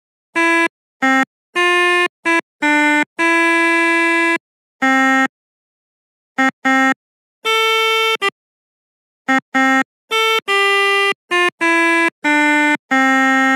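Pianika (melodica) playing the 'telolet' bus-horn tune: phrases of short notes and a few longer held notes, separated by gaps, with a longer pause about halfway through.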